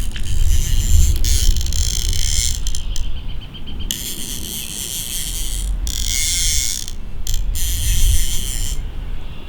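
Fly reel's click-pawl drag ratcheting in several stretches of a second or two with short gaps, as a hooked trout is played on the fly rod.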